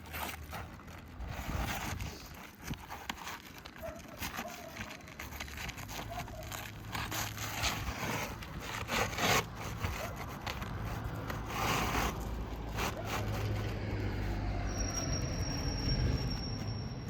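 Scraping and rustling as a new asphalt roof shingle is handled and slid into place, with a steady low rumble underneath from about six seconds in.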